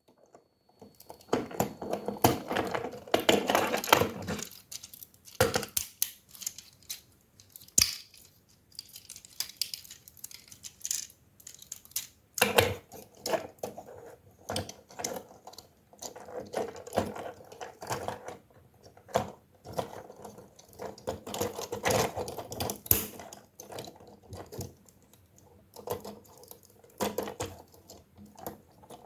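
Plastic parts of a transforming toy robot being handled, in irregular clicks, snaps and short rattles with brief pauses between them.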